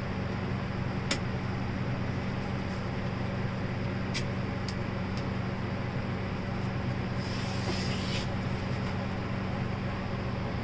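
A steady low hum with a few light clicks, and a brief scrape about seven seconds in.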